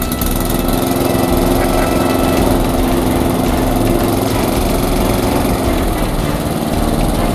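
Walk-behind petrol lawn mower engine running steadily as the mower is pushed over the lawn, its note dropping slightly about six seconds in.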